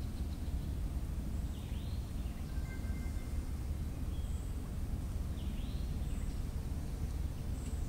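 A bird repeats a short arching call twice, about four seconds apart, over a steady low rumble of outdoor background noise, with a few faint high chirps.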